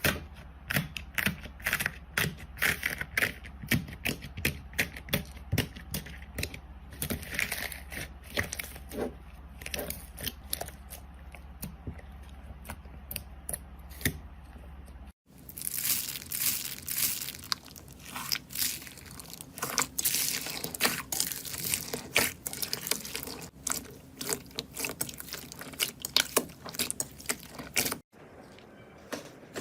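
Slime being squeezed and poked by hand: a dense, irregular run of sticky pops and crackles. The sound changes abruptly about halfway through and again near the end as the clip switches to other slime.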